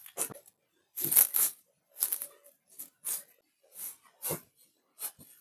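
Hands rubbing and pressing on a patient's body during manual bonesetting treatment: a run of short rustling strokes, about one every half second to a second, with a duller knock a little after four seconds in.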